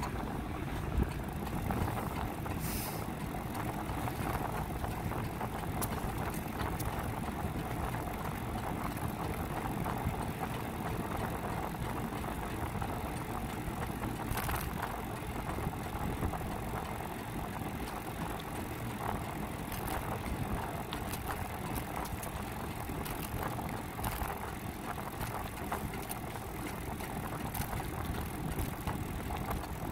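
A bicycle rolling along an asphalt road: a steady rush of wind over the bike-mounted microphone and tyre rumble, with a few sharp clicks and rattles from the bike.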